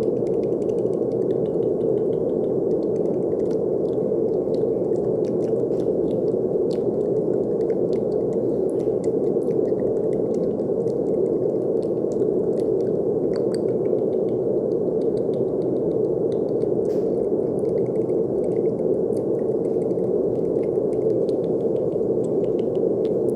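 Brown noise: a steady, low, muffled rushing hiss at an even level, with faint scattered small clicks above it.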